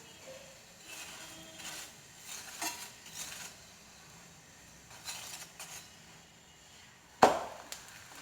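Light clinks and scrapes of a spatula against a tava griddle while a paratha is turned and pressed, with one loud clank about seven seconds in.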